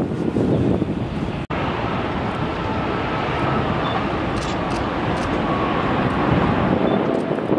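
Wind rushing on the microphone with airliner noise, cut off by a brief dropout about a second and a half in. Then a twin-engine Cathay Pacific Airbus A330 passes low on final approach with its gear down: a steady jet-engine rumble with a faint whine that sinks slowly in pitch.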